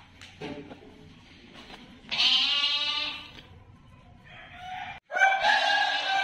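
Goats bleating: a long wavering bleat about two seconds in, then another long, steadier call about five seconds in.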